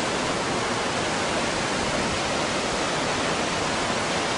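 Waterfall pouring steadily: an even rush of falling water.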